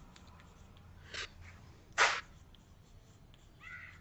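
Chalk writing on a blackboard: faint taps and strokes, with two short sharp noises, the louder about two seconds in.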